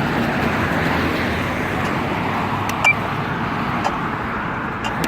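Steady road traffic noise from cars passing through an intersection, with a single short high beep and click a little under three seconds in.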